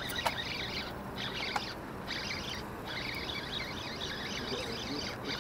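Many birds chirping and chattering together in a dense chorus that comes in stretches with short gaps. Two sharp clicks sound in the first two seconds.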